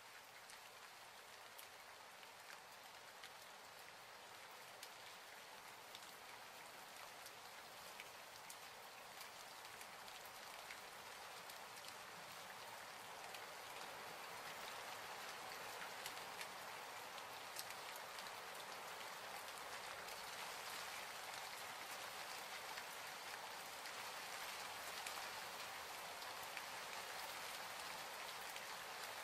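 Steady rain falling, with many individual drops ticking on a surface. It grows slowly louder across the stretch.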